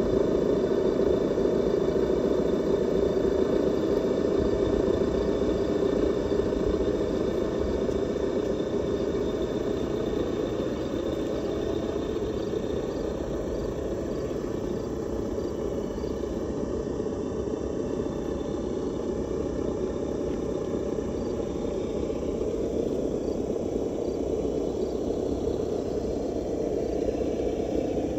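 Simulated engine sound from a Traxxas ESS-Dual engine sound simulator's onboard speaker on a TRX-4 RC crawler: a steady engine drone that wavers slightly in pitch and grows gradually fainter as the truck drives away.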